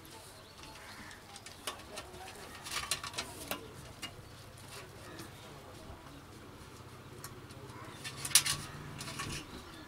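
Clicks and scrapes of a plastic four-way speaker terminal being worked into its slot in a sheet-metal amplifier casing, with a cluster of clicks about three seconds in and the sharpest click a little past eight seconds. A faint low hum runs underneath.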